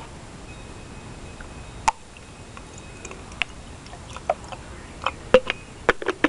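A single sharp click about two seconds in, then a run of small clicks and taps that come more often toward the end, over a faint steady hiss.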